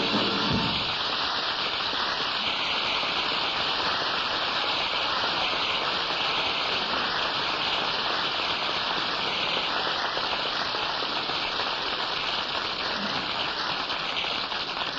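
Dinner audience applauding steadily. The last notes of the accompanying music die away within the first second.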